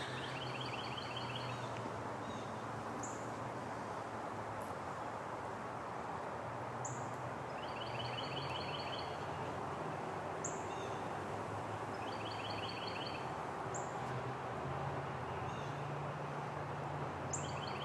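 Songbirds singing outdoors: one bird repeats a short, rapid trill phrase about four times, with brief high chirps in between. A steady low hum and a faint hiss sit underneath.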